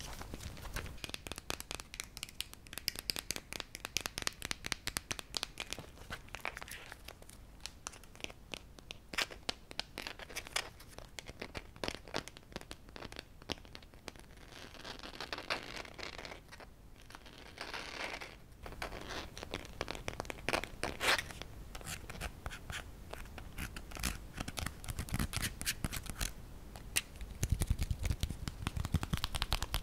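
Close-miked handling of a laptop power adapter and its rubber cables: quick scratchy rustles and small plastic clicks as the cord is turned and rubbed, with two brief rustling swells midway. Near the end, a denser run of fingertip taps and scratches on the plastic adapter brick.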